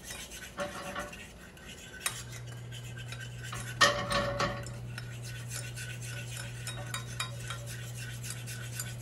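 A utensil stirring and scraping in a small pot of pan sauce made from steak juices and butter, with light repeated clicks and one sharper clank a little under four seconds in. A low steady hum comes in about two seconds in.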